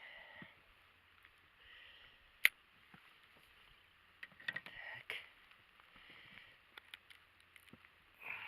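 Faint handling noises: scattered clicks and rustling, with one sharp, loud click about two and a half seconds in, and some low muttering.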